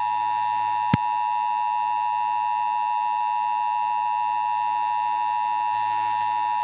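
Emergency Alert System two-tone attention signal, a loud steady dual tone announcing a monthly test alert. A brief click about a second in.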